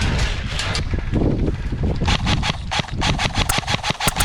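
Airsoft guns firing on full-auto: a rapid clatter of shots, scattered at first, then a fast steady run of about eight a second through the second half.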